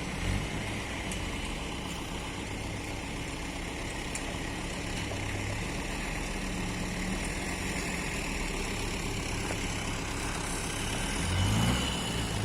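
Excavator's diesel engine running steadily, then revving up briefly and dropping back near the end.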